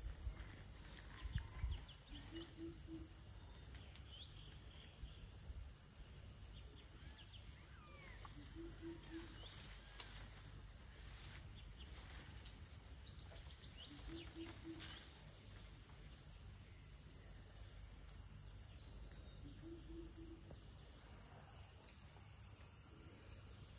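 Faint steady high-pitched drone of rainforest insects, with scattered short bird chirps and a low three-note call that repeats about every six seconds. A few low knocks about a second in.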